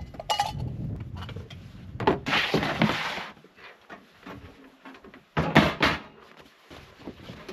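Gear being gathered at a pickup truck: a rustling scrape about two seconds in, then a couple of sharp bangs of the truck door shutting just after five seconds.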